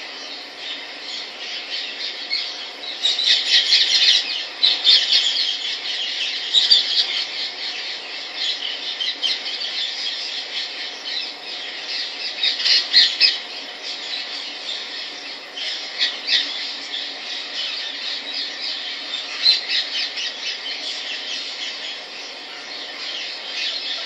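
Indian ringneck parakeet giving rapid, shrill, high-pitched chattering calls in repeated bouts, with louder spells a few seconds in, around the middle and again later.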